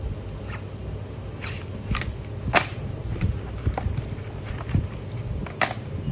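Paperboard packaging being handled: a cardboard insert tray slid out of its carton and a cream tube lifted from it, giving scattered short scrapes and taps over a steady low background noise.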